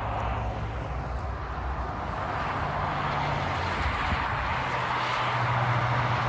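Highway traffic passing: a steady rush of vehicles with a low engine hum underneath, growing louder over the last couple of seconds.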